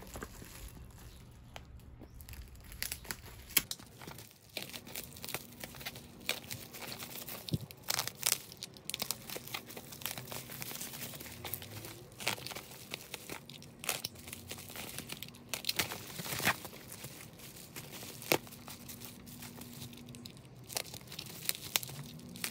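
Bubble wrap crinkling and crackling as hands handle and open bubble-wrapped parcels, with packing tape being cut and torn off. Sharp crackles come irregularly throughout.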